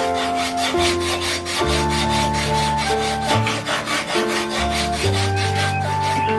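Bamboo being abraded by hand: fast, even rasping strokes, about six a second, that stop near the end. Background music with held notes and a bass line plays throughout.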